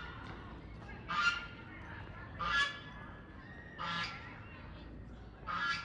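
A goose honking repeatedly: four short calls, about one every one and a half seconds.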